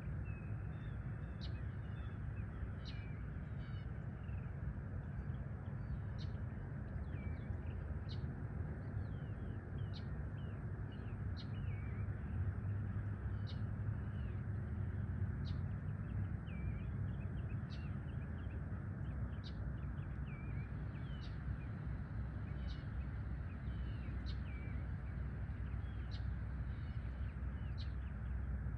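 Small birds chirping, one repeating a sharp high note every couple of seconds while others call in short twittering notes, over a steady low rumble.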